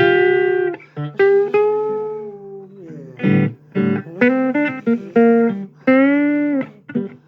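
Blues music played on guitar: phrases of pitched notes over a steady low bass line.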